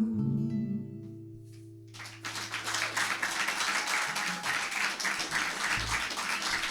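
The last chord of an acoustic guitar song rings out and fades. About two seconds in, an audience starts applauding, and the clapping goes on steadily.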